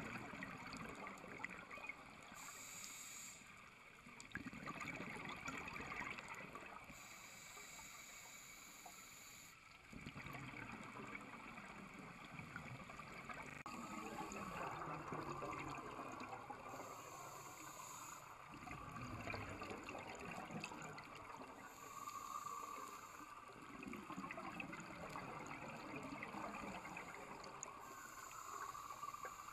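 Scuba regulator breathing underwater: a short hiss of inhalation every few seconds, alternating with the bubbling rumble of exhaled air.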